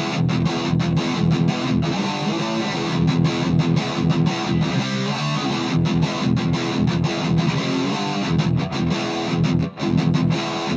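Electric guitar, a Gibson SG Standard, played through a Marshall MG10CF combo amp on its overdrive channel with the gain at about halfway, picked up by a microphone at the speaker. Continuous chord-and-riff playing with short stops between phrases and a brief gap about a second before the end.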